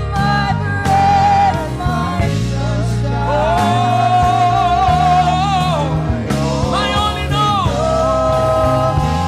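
Gospel song with a lead singer's voice over a band with bass and sustained chords.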